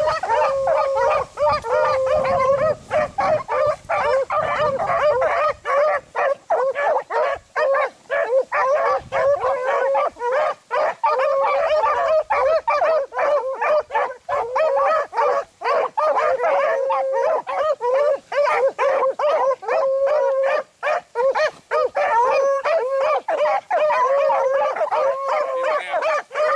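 A pack of beagles baying on a rabbit's track, several hounds' voices overlapping in a continuous string of short cries.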